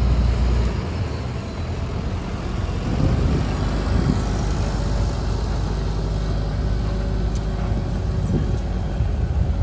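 Farm machinery's diesel engine running steadily, with a heavy low rumble that eases about a second in.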